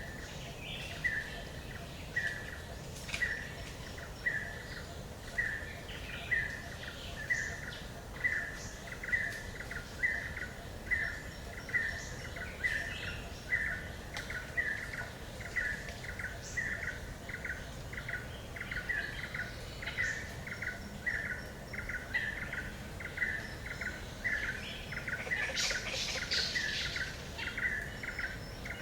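A bird repeating one short note about once a second, a little faster toward the end, with other birds chirping around it in a forest. A few seconds before the end, a brief flurry of higher, louder chirps rises over it.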